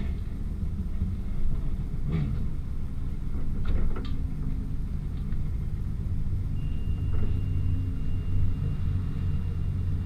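Pickup truck engine running in reverse while it backs a boat trailer down the launch ramp, a steady low rumble with a few light knocks from the rig.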